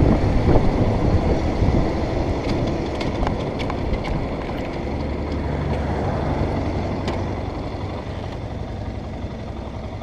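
Motorcycle in motion, heard from the handlebars: engine running with wind rushing over the microphone, easing off toward the end as the bike slows and pulls onto the roadside.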